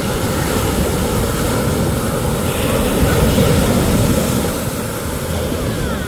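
Low, steady rushing roar of ocean surf on a beach, swelling a little midway and then easing off.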